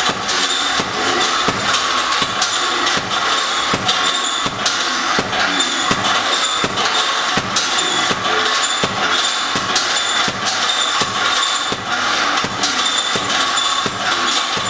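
Boxing gloves landing on a heavy bag in rapid, repeated punches, many sharp thuds, over a loud steady hiss-like background noise.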